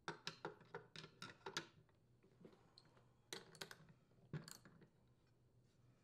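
Sharp clicks of a socket ratchet and of tools knocking against the edger's metal blade as the blade's mounting nut is tightened. A quick run of clicks in the first second and a half, then a few more in two short clusters later.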